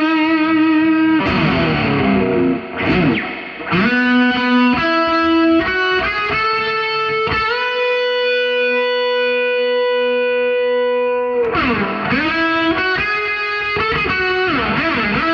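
Electric guitar with distortion and effects playing a slow melody of sustained notes. One note is held for about four seconds in the middle, and several notes swoop down in pitch and back up.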